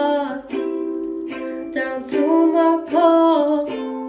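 Ukulele strummed in slow chords, with a wordless sung vocal line held and sliding over it, in a small tiled room that adds a short echo.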